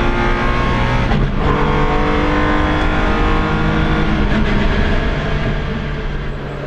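Nissan Skyline C10 Hakosuka's straight-six engine pulling hard under acceleration, heard from inside the cabin, with a brief break in the engine note about a second in as the driver changes gear, then pulling again. The engine sound drops in level near the end.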